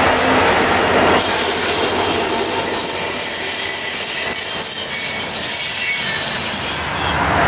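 Freight train's open-top hopper cars rolling past close by: a steady rumble of steel wheels on rail, with thin high-pitched wheel squeal above it.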